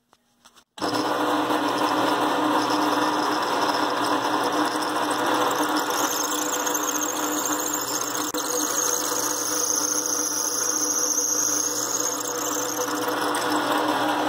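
Drill press motor switching on about a second in and then running steadily while its twist bit bores a hole into a hardwood block.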